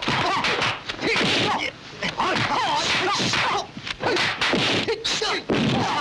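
Kung fu film fight sound effects: a rapid run of dubbed punch and block whacks and swishes, about eight in a row, with the fighters' short shouts and grunts between them.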